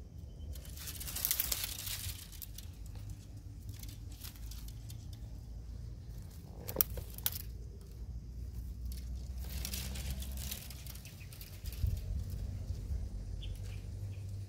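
Leaves and thin branches rustling and crackling as a baby monkey climbs and shakes them, in two main bursts, with one sharp snap near the middle. A low steady rumble runs underneath.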